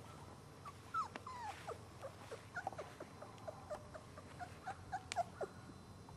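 Labrador retriever puppies whimpering and squeaking: many short, high little cries scattered throughout, a few sliding down in pitch about a second in.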